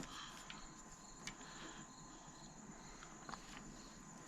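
Faint insects chirping: a steady high buzz with a short high chirp repeating a couple of times a second, and a few faint light clicks.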